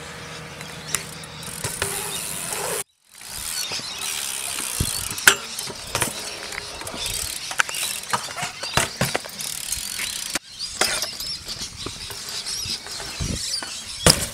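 BMX bikes riding concrete skatepark ramps: tyres rolling on the concrete, the rear hub ratcheting as the bike coasts, and many sharp clicks and knocks from landings and the bike striking the ramp edges. The sound breaks off briefly twice.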